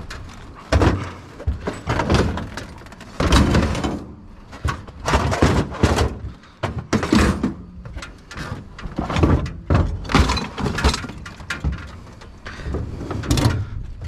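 Salvaged junk being shifted and rearranged by hand: irregular thumps, knocks, scrapes and clatters of hard objects being moved and set down.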